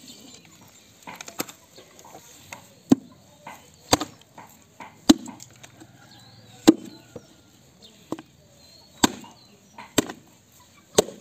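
Machete chopping through a pork carcass: about eight sharp blows of the blade into the meat, spaced irregularly about a second or two apart.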